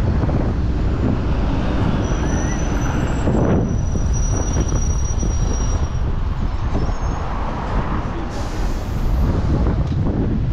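Gale-force wind buffeting the microphone, a heavy, uneven low rumble, with a faint thin high whistle for a few seconds partway through.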